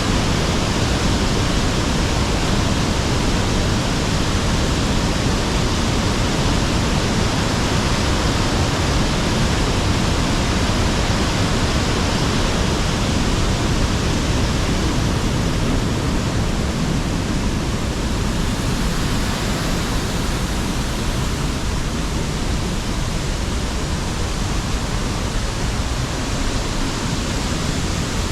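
A river waterfall rushing steadily: a dense, even roar of falling and running water with no pauses or individual splashes.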